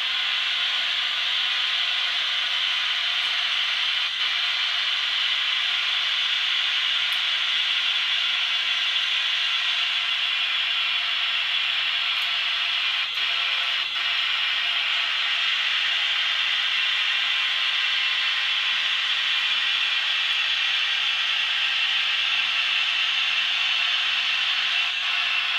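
Märklin HO-scale model electric locomotives, SBB Re 6/6 type, rolling slowly with a heavy ore train, giving a steady, even hiss with a faint whine and a few light clicks.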